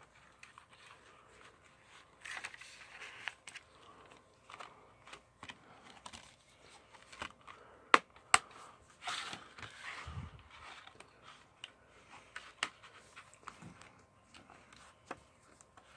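Handling of a plastic Blu-ray case and its paper insert: soft rustling and scraping, with two sharp clicks about eight seconds in as the case snaps shut. Near the end, the case slides into its cardboard slipcover.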